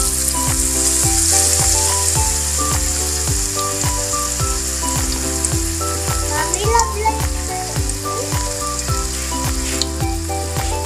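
Battered sweet potato leaves frying in hot oil with a steady sizzle, under background music with a steady beat.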